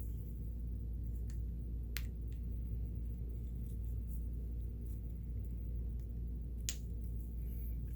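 A few sharp small clicks from handling tools and parts while greasing a sewing machine's mechanism, the loudest about two seconds in and near the end, over a steady low hum.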